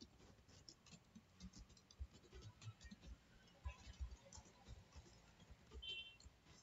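Faint, irregular computer keyboard keystrokes, barely above silence.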